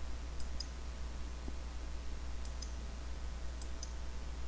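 Computer mouse button clicking three times, each click a faint press-and-release pair, as anchor points are placed with a vector tool. A low steady hum runs underneath.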